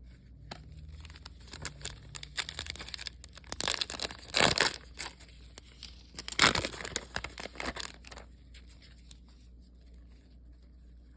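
Trading cards being handled and pulled apart, rustling and crinkling, with two louder tearing-like rasps about four and a half and six and a half seconds in. The cards are sticking together.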